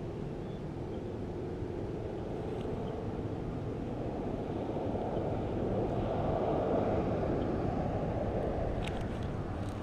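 Distant engine rumble with a low hum. It swells about halfway through, then fades again, as a passing vehicle does.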